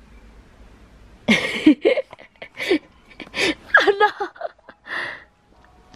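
A person's voice in a run of short, high-pitched bursts that the recogniser did not catch as words, starting about a second in.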